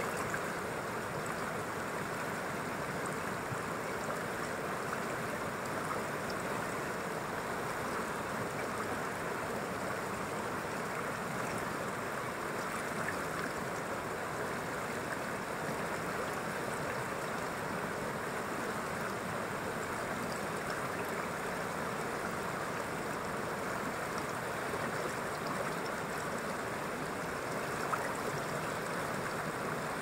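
Fast, rocky mountain river rushing steadily through rapids around boulders.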